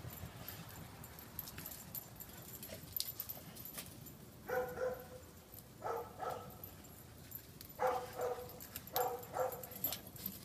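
Dogs barking in four short runs of one to three barks each, starting about four and a half seconds in.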